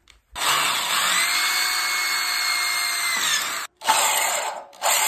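Corded electric drill running as it bores an 8 mm hole through a rusty steel bumper bracket. It runs steadily for about three seconds, stops briefly, then starts again in shorter bursts.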